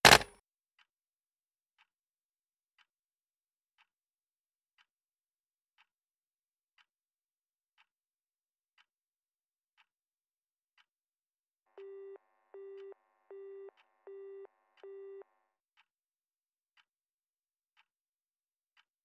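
A telephone handset set down hard on its cradle with a sharp clack at the start. A clock then ticks faintly about once a second. Partway through come five short beeps of a phone busy tone, about one and a half a second.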